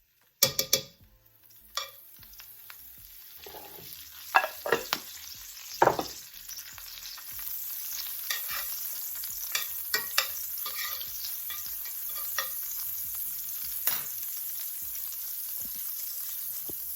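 Butter sizzling as it melts in a hot frying pan, building to a steady, louder sizzle partway through. Several sharp knocks of a utensil against the pan come in the first half.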